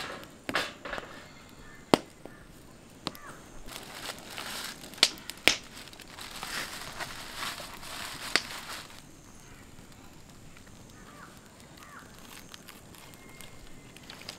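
A few sharp clicks and knocks from a wire grill grate being handled and set over a wood fire on stones. Between about 4 and 9 seconds in, aluminium foil crinkles as a foil-wrapped fish is laid on the grate.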